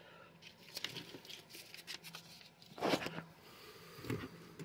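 Faint rustling and small clicks of paper plates and plastic seasoning shakers being handled, with a brief louder handling sound about three seconds in.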